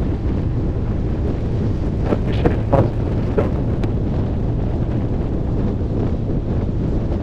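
Wind rushing over the microphone of a moving motorcycle, with the bike's engine running underneath. A few brief sharp sounds come about two to three and a half seconds in.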